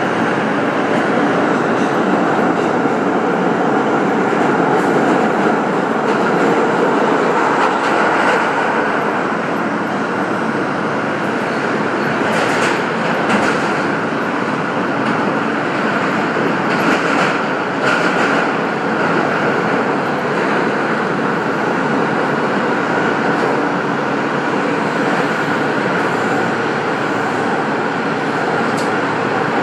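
Steady rumble of a train running on rails, with a few brief higher-pitched bursts about halfway through.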